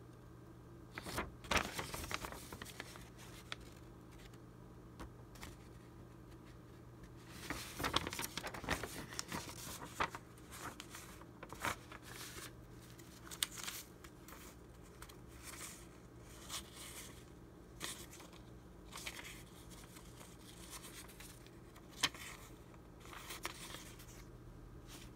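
Old paper documents over a century old rustling and crinkling as hands pick them up, turn them over and sort through the pile: irregular crisp crackles with short quiet gaps between.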